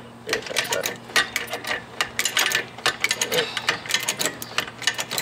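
Hydraulic floor jack being pumped by its handle: a quick, irregular run of metallic clicks and clanks as the jack raises the wheel hub to load the suspension.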